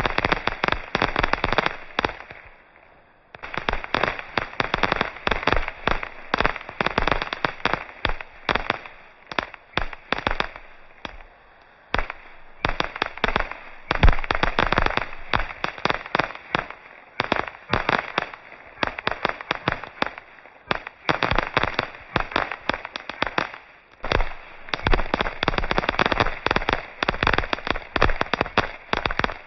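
Fireworks display: dense, rapid crackling and popping of bursting shells, with a few brief lulls and one louder bang about halfway through.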